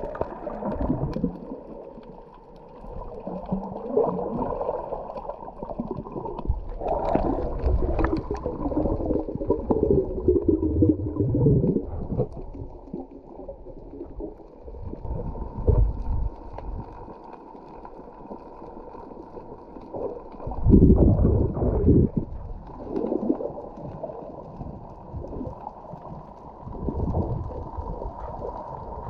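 Muffled underwater sound picked up through an action camera's waterproof housing: water sloshing and gurgling around the camera as the diver swims, with a few louder bumps, the loudest about 21 seconds in.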